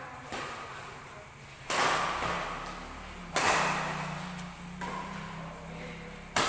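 Badminton rally: rackets striking a shuttlecock about five times, roughly every second and a half, each hit a sharp crack echoing in a large hall.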